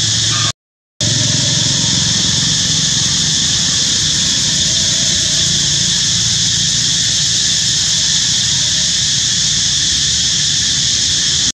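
Steady outdoor background noise, a loud high hiss over a low rumble, with no monkey calls heard. It cuts to dead silence for about half a second near the start at an edit, then carries on unchanged.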